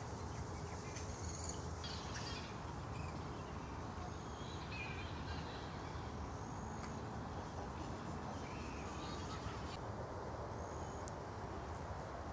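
Outdoor ambience: a steady low rumble with scattered short bird chirps and calls.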